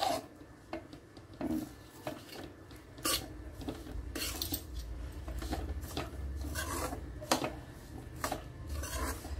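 Metal spatula scraping and knocking against a kadai, stirring semolina upma in short irregular strokes. A low hum sits underneath from about four seconds in.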